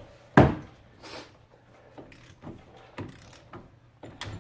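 Hand tools being handled at a car's front wheel: one loud clunk about half a second in, then several lighter knocks and clicks.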